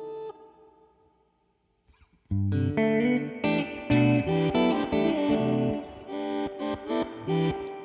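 Electric guitar played through a BL-44 reverse-effect pedal. The notes die away to near silence about a second in, and a new run of notes and chords starts about two seconds in.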